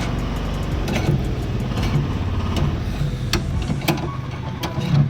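A motor vehicle's engine idling steadily, with a few sharp metallic clicks in the second half.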